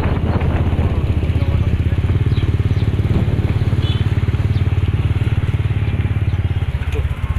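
Motorcycle engine running steadily at low road speed, a rapid even putter.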